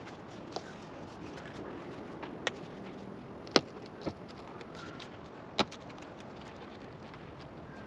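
Scattered sharp knocks and clicks, about five in all, from hands handling tools and parts during installation. The loudest comes about three and a half seconds in, over a steady background hum.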